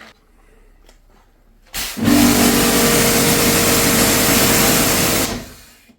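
Kärcher K7.650 pressure washer's motor and pump starting with a click about two seconds in, running loud and steady with a hissing noise, then stopping and dying away near the end. It starts normally now that the blown run capacitor has been replaced with a new 43 µF one.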